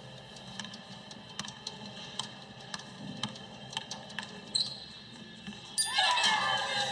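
Basketball dribbled on a hardwood gym floor: sharp, irregular bounces, with a louder burst of sound near the end.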